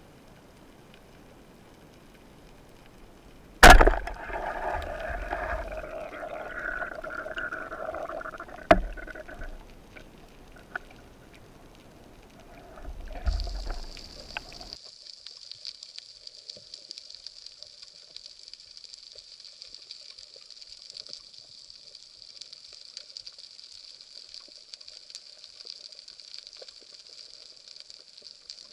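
Underwater sound through an action camera's waterproof housing: a sharp knock a few seconds in, then a few seconds of churning water noise with a second knock, then a steady high hiss with faint crackling.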